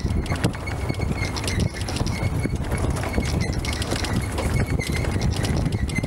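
Open safari jeep driving over a rough dirt track: a steady low engine and road rumble with constant rattling and knocking as it bounces over the ruts.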